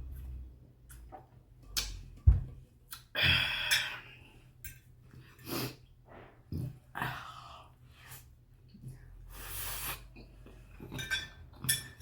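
A toothless person eating shrimp chow mein close to the microphone: irregular wet clicks and smacks of gummy chewing, with two longer breathy rushes of air, about three seconds in and again later on.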